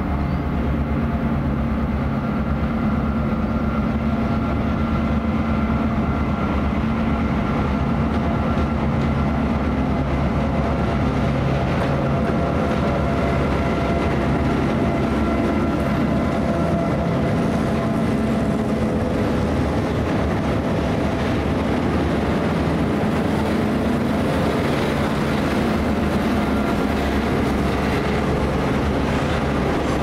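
EMD diesel-electric locomotives running with a steady, deep engine drone that holds throughout, along with the rumble of the train on the rails.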